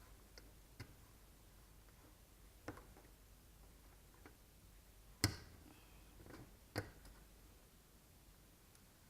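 A few sharp, separate clicks and knocks, the loudest about five seconds in, from the plastic push clips of a truck's rubber upper radiator cover being pressed into place.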